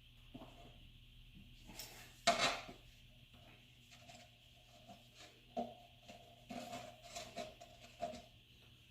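Metal tools and parts clanking and clinking as the front strut assembly is worked on, with one louder clank about two seconds in and a run of short ringing clinks in the second half.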